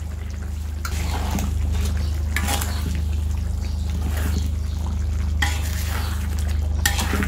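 A metal ladle and spatula stirring a simmering fish curry in a steel wok, scraping against the pan about every second and a half, over a steady low hum.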